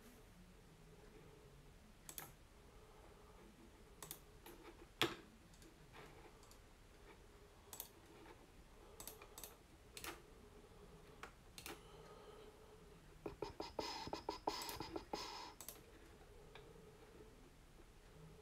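Keys clicking on a computer keyboard in a quiet room: scattered single clicks every second or two, then a quick run of typing about three quarters of the way through.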